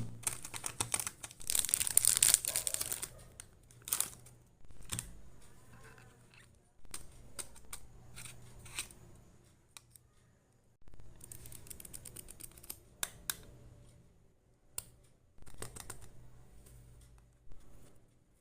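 Packaging of mini sticky notes and a note pad being handled and opened: crinkling and rustling, loudest in the first few seconds, with scattered sharp clicks and taps and softer rustling stretches after.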